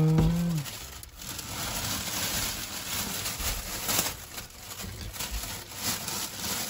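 Plastic bag crinkling and rustling as it is handled over a stainless-steel sink, with a few light knocks.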